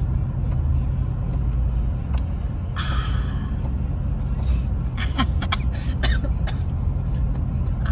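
Steady low road and engine rumble heard inside a moving car's cabin, with a brief rasping noise about three seconds in and a few faint clicks.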